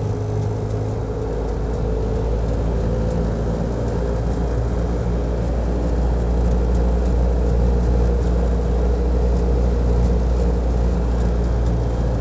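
Car engine and road noise heard from inside the cabin of a moving car: a steady low rumble with a humming engine tone, getting a little louder from about halfway through.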